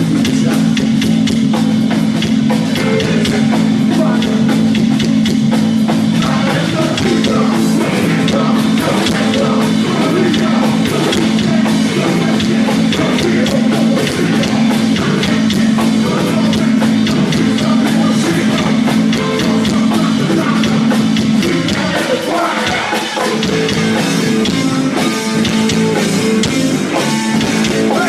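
Live rock band playing loudly: drum kit, electric guitar and bass.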